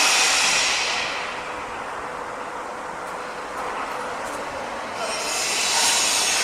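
Construction-site machinery noise: a loud high hiss that fades about a second in and swells back near the end, over a constant lower rumble.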